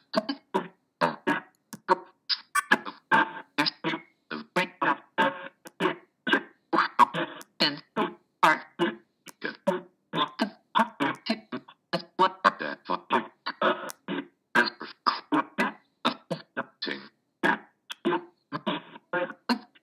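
Echovox ghost box audio bank played in random order: a rapid string of short, chopped voice fragments, syllables and bits of words, about three or four a second, each cut off abruptly with a brief gap before the next. This is what an Echovox spirit-communication session sounds like.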